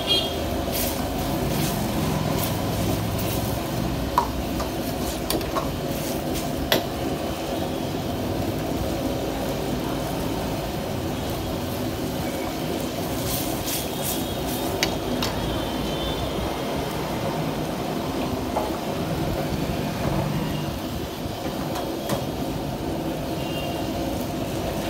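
Steady roar of a commercial gas burner under an iron wok, with a few sharp clinks of a steel ladle against the wok.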